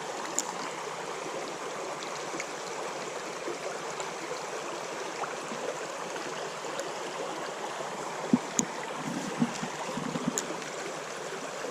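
Small, low summer trout stream running steadily over stones, with a few soft knocks and clicks of handling about two-thirds of the way through.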